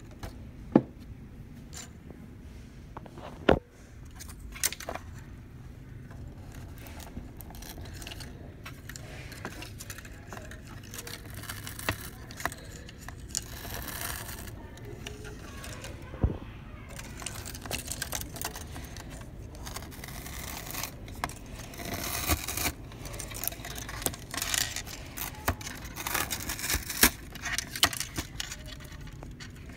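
Handling noise from an opened HP LaserJet Pro MFP scanner unit as its flat ribbon cable is worked by hand. Two sharp plastic clicks come in the first few seconds, then continuous rustling and scraping with small clicks as the cable and housing are handled.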